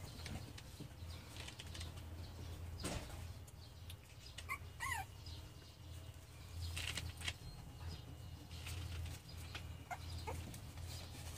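Three-week-old puppies shuffling and scrabbling about on a blanket and wooden floor, with scattered light rustles and clicks over a steady low hum. A brief high squeak comes about five seconds in.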